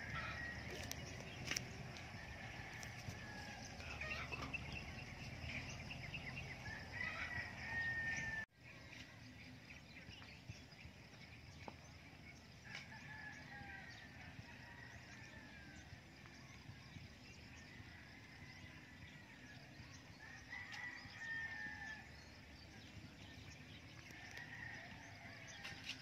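Roosters crowing, faint and repeated: about six drawn-out calls spread through, over a light outdoor background.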